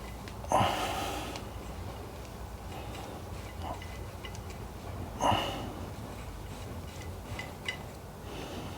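Two short, sharp breaths through the nose, about five seconds apart, with a few faint small clicks from wires being handled in between.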